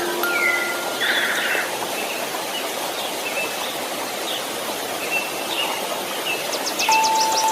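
Steady white-noise hiss with short bird-like chirps and trills over it, and a held chime note near the start and another near the end.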